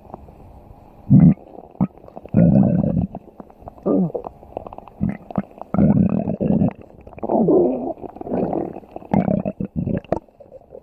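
Stomach growling: a string of gurgling rumbles, each under a second long, coming one after another with short gaps.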